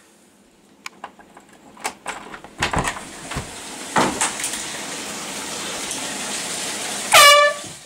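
A few knocks and clicks, then shower water running in a steady hiss. Near the end comes one short, loud, high-pitched cry.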